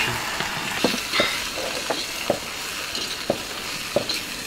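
People eating at a table: chewing and lip-smacking, with chopsticks working rice in a porcelain bowl, giving short soft smacks and taps every half-second to a second over a light steady hiss.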